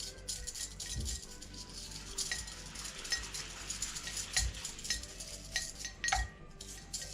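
Metal wheel bearings clinking and rattling as they are swished and scrubbed in a container of 100LL avgas to clean out the old grease, with irregular sharp clinks throughout.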